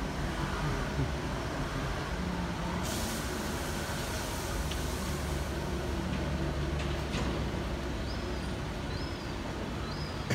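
Steady low engine rumble of urban street traffic, with a brief hiss about three seconds in and a few short high chirps near the end.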